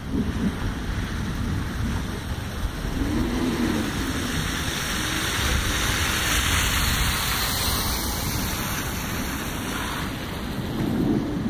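Rain falling steadily, with a low rumble of thunder underneath.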